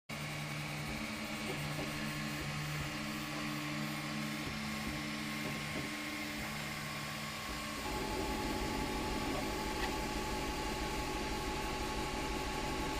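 Ultimaker 2 3D printer running, its stepper motors whining at steady pitches that switch every second or so as the print head moves, over a steady fan tone. About eight seconds in the motor tone jumps higher and the sound gets a little louder.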